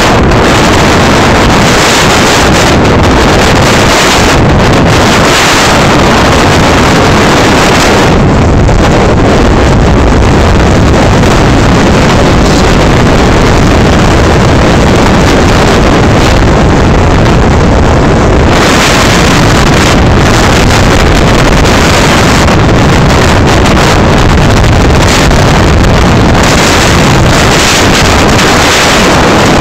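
Loud, steady roar of storm wind and overflowing lake water, with wind buffeting the microphone in gusts.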